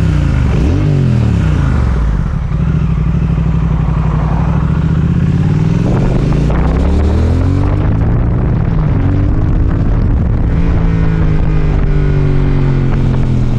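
Motorcycle engine under hard acceleration, its revs climbing and falling several times as the bike pulls away, then holding steady near the end, with wind rush.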